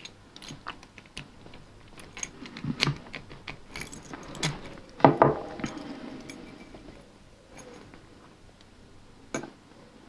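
A small bunch of metal keys on a split key ring with a metal bottle opener jangling and clinking as they are handled and turned over, with the loudest clinks about five seconds in and quieter handling near the end.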